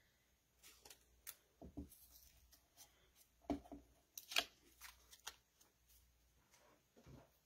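Faint rustling of cardstock and light taps and clicks as a small cutting die is pressed onto a stamped piece of cardstock and the piece is picked up off the craft mat. The sharpest click comes about four and a half seconds in.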